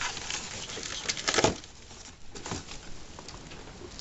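Packaging being handled as a shipping box is unpacked: cardboard, plastic and foam packing rustling and scraping, with a louder crinkling scrape about a second and a half in.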